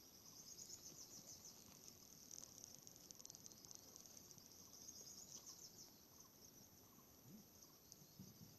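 Faint, steady high-pitched chirring of insects, likely crickets, with a slight pulsing.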